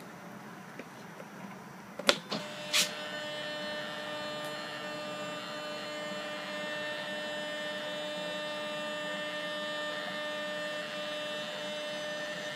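Two sharp clicks about two seconds in, then a small electric motor starts and runs with a steady whirring hum.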